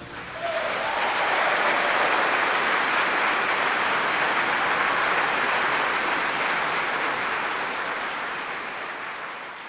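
Audience applause, swelling up within the first second, holding steady, then fading away near the end.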